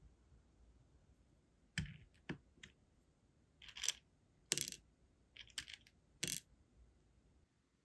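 Sealing wax beads being picked out of a plastic compartment box with tweezers and dropped into a metal melting spoon: a series of light clicks and small clatters, about seven in all.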